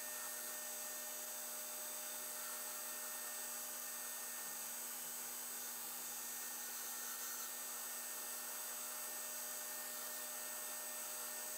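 Steady electrical hum with a faint hiss, unchanging throughout; no grinding against the belt is heard.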